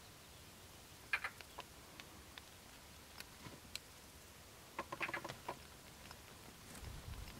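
Two short bursts of harsh, rapid chattering calls from a bird, about a second in and again around five seconds in, with a few single ticks between. A brief low rumble near the end.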